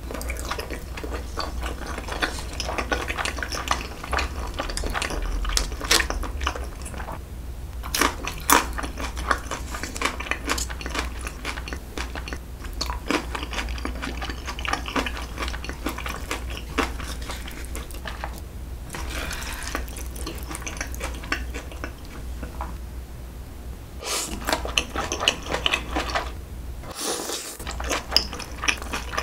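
Close-miked eating sounds: wet chewing of braised pig's trotters and noodles, with sharp clicks of chopsticks and dishes throughout. Near the end the noodles are slurped and the sounds get louder.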